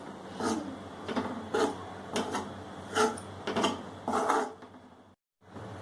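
A spatula scraping and stirring dry gram flour (besan) as it roasts in a kadhai, a scrape about every half second. The sound cuts out completely for a moment near the end.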